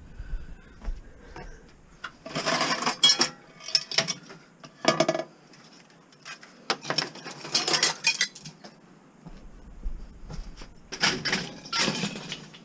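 Loose scrap metal clattering and clinking as pieces are handled and dropped, in about five bursts of a second or so each.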